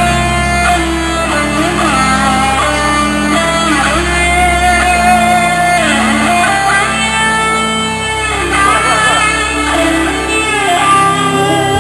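Live band playing an instrumental passage: a guitar lead line with bending, gliding notes over held bass notes.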